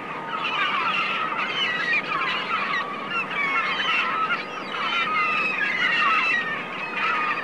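A flock of gulls calling over open water, many short overlapping cries at once, over a steady rushing noise.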